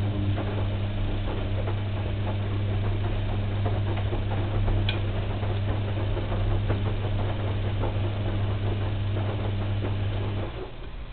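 Washing machine running: a steady low motor hum with a stream of clicks and knocks from the turning drum, which cuts off suddenly shortly before the end as the drum stops.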